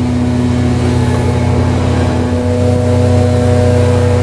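Steady, loud mechanical drone of a running machine, holding several steady tones over a strong low hum; its pitch shifts slightly about two and a half seconds in.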